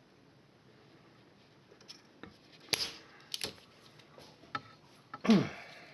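Small clicks and knocks of hand tools at a workbench, then near the end a loud snap from a Koto spring-loaded solder sucker firing its plunger, with a short downward twang.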